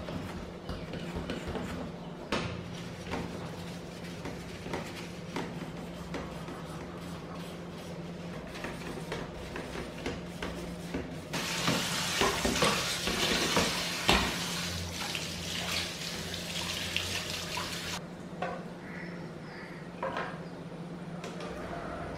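Sponge scrubbing a metal wire dish-drying rack, with small clinks and knocks of the wires. About halfway through a kitchen tap runs hard for several seconds as the rack is rinsed under it, then stops, and the rack clinks again as it is handled.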